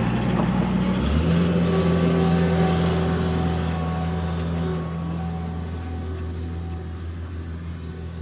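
Mini skid steer engine running steadily, its low note changing about a second in, then gradually fading.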